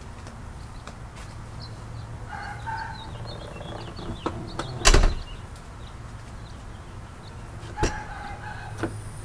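Rear liftgate of a 2001 Jeep Cherokee XJ, carrying a spare tire on a hatch-mounted carrier, swung down and slamming shut about halfway through. A lighter knock follows about three seconds later.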